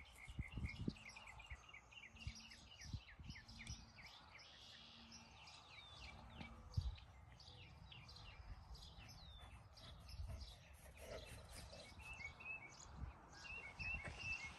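Faint outdoor ambience of small birds singing, with quick repeated chirps and short down-slurred notes throughout. A few low thumps are heard, the loudest about halfway through.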